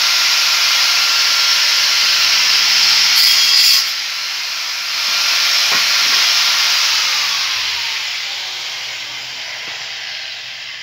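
Electric angle grinder grinding the steel blade of a homemade hoe: a loud, harsh hissing whine with a brighter burst of grinding contact in the first few seconds. It then winds down with a falling pitch over the last few seconds as the grinder is switched off.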